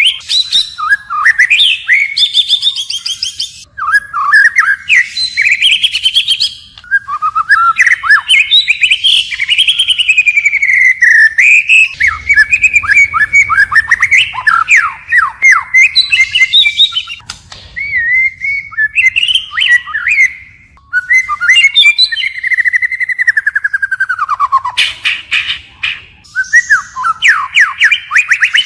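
White-rumped shama singing a loud, continuous song of varied phrases, switching from one phrase to the next with only brief pauses. The phrases run from sliding, swooping notes to fast rapid-fire trills.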